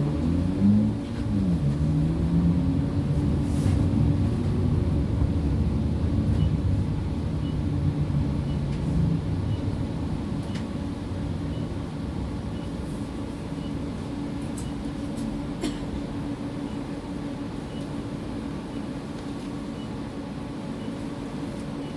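PESA Fokstrot low-floor tram running, heard from inside the passenger cabin: the traction drive hum rises and falls in pitch over the first few seconds, then settles into a steady running rumble that slowly gets quieter. A faint regular ticking, about two a second, comes in about six seconds in.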